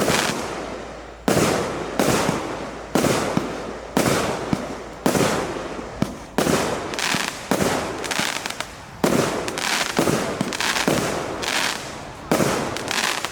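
A 36-shot, 1.2-inch consumer firework cake firing its shots in quick succession, about a dozen in all, roughly one a second. Each is a sharp bang followed by a hissing tail that dies away over about a second.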